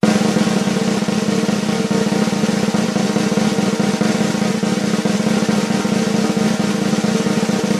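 A cat pawing rapidly and nonstop at a glass storm door, making a fast, continuous rattle like a drum roll.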